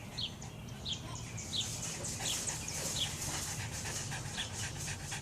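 Boston Terrier panting quickly and rhythmically after a sneezing fit. Short high falling chirps come through every half second to a second.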